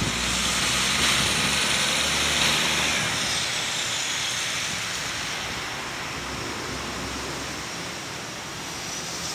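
Road traffic: a motor vehicle's engine and tyre noise, a steady hiss with a low engine hum, fading away over several seconds as it passes.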